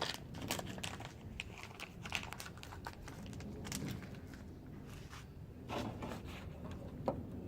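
Close, scattered clicks, taps and crinkling from small plastic parts being handled by hand: reverse-light bulbs, sockets and packaging.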